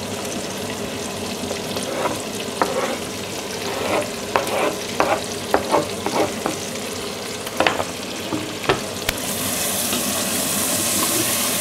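Chopped onion and garlic sizzling in rendered fat with frying chouriço and bacon in a stainless steel pot, while a wooden spatula stirs and knocks against the pot in short sharp clacks. About three-quarters of the way in, the sizzle turns brighter and louder.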